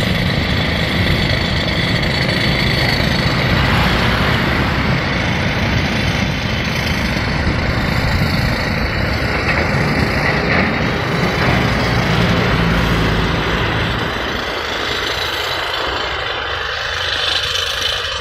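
Steady mix of road traffic and construction machinery engines, a dense rumbling din that eases off somewhat about fourteen seconds in.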